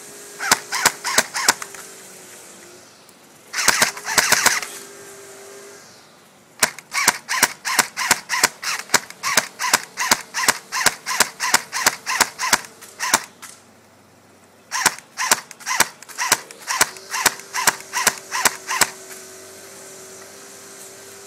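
Airsoft M4 rifle firing semi-auto, rapid single shots in several strings of sharp cracks at about three to four a second, with short pauses between strings.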